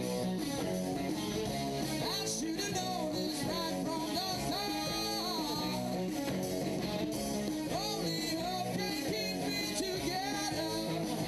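A rock band playing live, with electric guitars carrying the music and notes bending and sliding throughout.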